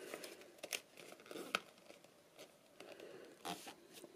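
Faint rustling and crinkling of a large sheet of designer series paper as a folded flap is brought across and pressed flat by hand, with a few soft crackles of the paper.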